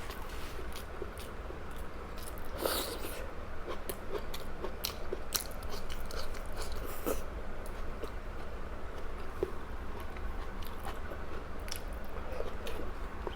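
Close-up eating sounds: a person chewing and biting food, with many small irregular clicks, over a steady low hum.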